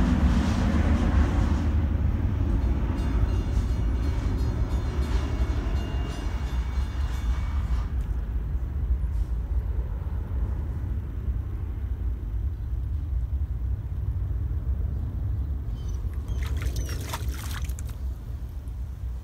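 Steady low outdoor rumble that slowly fades, with a brief cluster of water splashes near the end as a dog steps out of a paddling pool.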